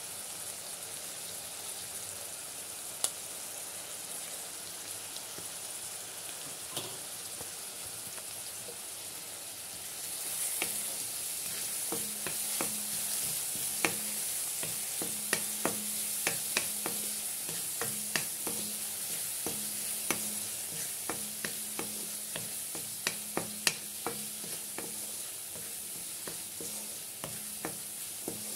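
Chopped onion and tomato sizzling in oil in a kadhai. About ten seconds in the sizzle grows louder and a spatula starts scraping and clicking against the pan as the masala is stirred, with many sharp ticks.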